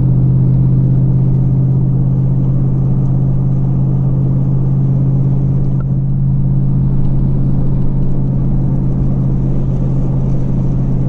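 Steady low drone of road and engine noise inside a vehicle's cabin, cruising at highway speed.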